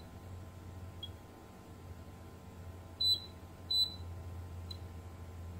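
Kaiweets KM601 digital multimeter giving two short high beeps, about three seconds in and again under a second later, as its probes are touched across the legs of a MOSFET in diode test. A steady low hum runs underneath.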